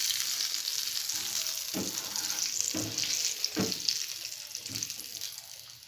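Hot oil sizzling in a pan as whole dried red chillies, turmeric and red chilli powder fry for a tadka (tempering). A wooden spatula scrapes through the pan about once a second. The sizzle fades toward the end.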